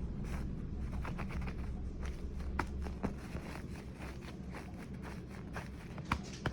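A few short, sharp taps and clicks over a low steady hum.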